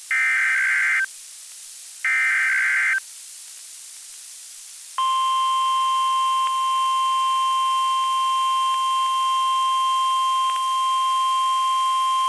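NOAA Weather Radio SAME header: two harsh, warbling digital data bursts about a second long and two seconds apart, with radio hiss between them. About five seconds in, the steady 1050 Hz warning alarm tone begins and holds without a break, signalling a National Weather Service test alert.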